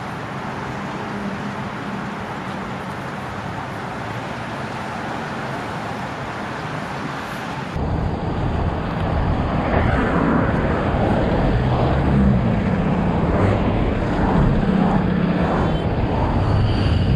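Road traffic passing at a busy intersection: a steady hiss of tyres and engines. About eight seconds in it changes abruptly and grows louder, with more engine rumble.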